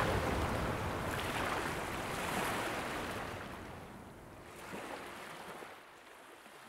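Ocean surf: waves washing in a steady rushing wash that gradually fades out, with a brief small swell near the end.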